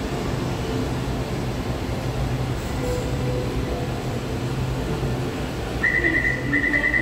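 Taichung MRT metro train standing at a platform with a steady low hum. About six seconds in, a rapid high beeping in short repeated bursts starts: the door-closing warning.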